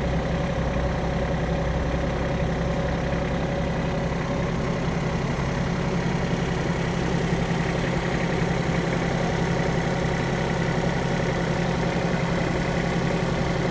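A heavy engine running steadily at low speed, like idling machinery.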